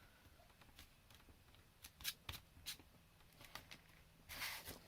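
Faint rustling and light tapping of card stock being handled, with a few soft clicks and a louder rustle near the end.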